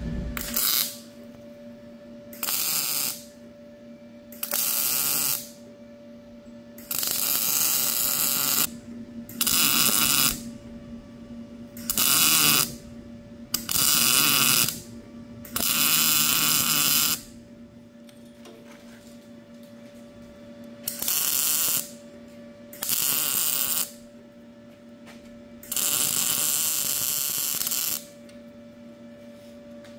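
Wire-feed (MIG) welder crackling as it lays welds on a steel exhaust pipe, fitting an oxygen-sensor bung. It comes in about eleven separate bursts of one to two seconds each, with a steady hum in the pauses between them.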